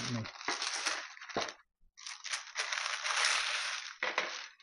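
Parchment paper crinkling and scraping as it is dragged, loaded with food, off a metal baking sheet, in two long rustling pulls.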